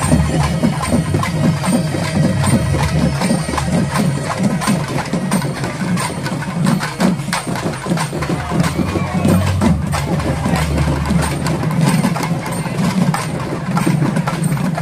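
Loud festival music with heavy, rapid drumming, sharp strikes and a regular high metallic tick over the beat.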